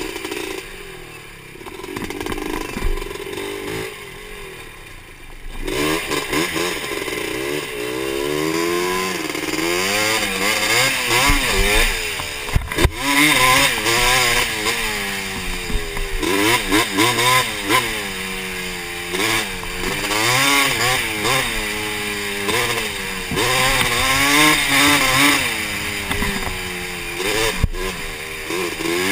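Honda TRX250R's two-stroke single-cylinder engine being ridden hard, its pitch rising and falling every second or two as the throttle is worked and the gears change. Quieter for the first few seconds, then louder from about five seconds in.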